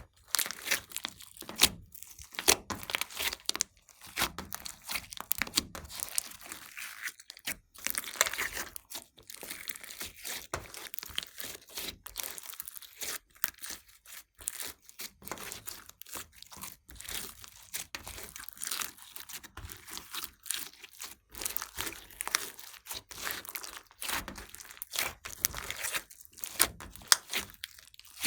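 Glossy slime, mixed with clay and glitter, being squeezed, stretched and folded by hand, giving a dense crackling of many small sharp clicks and pops.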